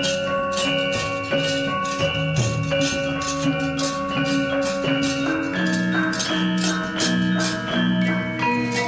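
Central Javanese gamelan ensemble playing: bronze metallophones and gong-chimes ringing out a steady run of struck notes over hand-drum strokes.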